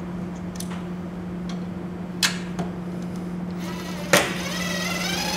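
A few light clicks as a self-tapping screw is set on the bit and placed on the steel base plate, then, near the end, a cordless drill's motor starts and its whine rises steadily as it begins driving the screw into the truck bed.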